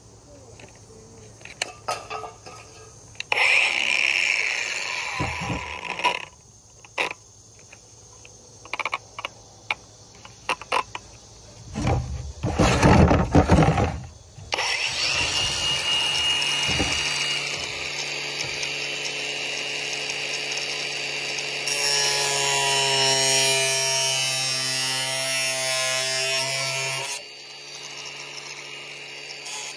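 Cordless angle grinder grinding an overhanging plastic piece flush with a plastic milk crate. It makes two short runs, then one long run of about twelve seconds that stops near the end.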